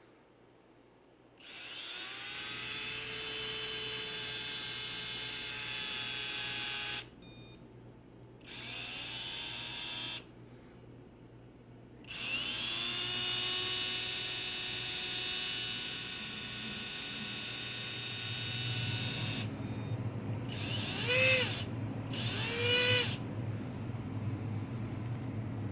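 Small electric hobby motor spinning up with a high whine and running at steady speed, stopped and restarted several times. Short runs of stepped beeps come twice, and near the end it is blipped twice, its pitch rising and falling, over a growing low rumble. The uploader calls the motor bad.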